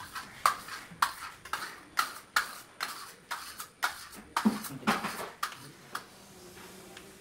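Steel trowel scraped across freshly applied Venetian stucco on a wall in a quick series of short strokes, about two a second, stopping about six seconds in.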